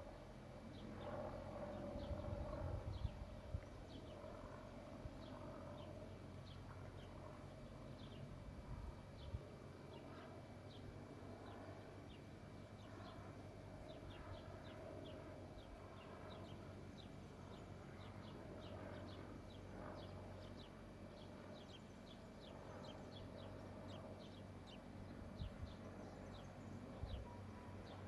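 Faint steady hum and low rumble of a ZSSK class 861 diesel multiple unit's engines as it pulls away from a station. Frequent short, high chirps sound over it.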